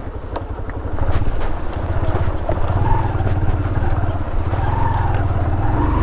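Small single-cylinder motorcycle engine running at low revs, its steady firing pulses growing louder about a second in.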